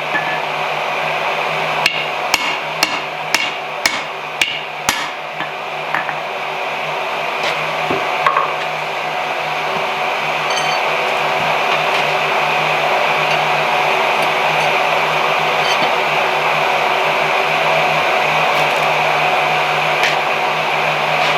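Hammer blows on hot bar stock over an anvil: a quick run of about eight strikes, roughly two a second, then only an occasional tap. Under and after them runs a steady rushing noise with a low hum, which becomes the loudest sound for the second half.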